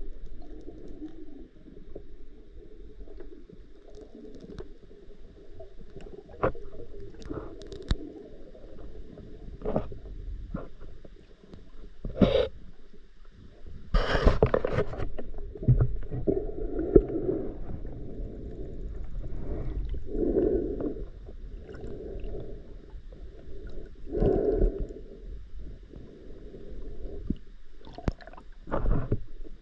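Muffled underwater noise picked up by a camera in a waterproof housing as a spearfisher swims: a dull, low rushing of water with surges, and scattered clicks and knocks, the sharpest about 12 and 14 seconds in and near the end.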